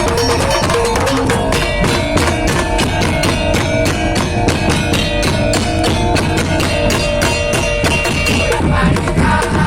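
Madurese tong-tong (ul daul) percussion ensemble playing a fast, steady beat of drums and percussion, with a melodic line over it.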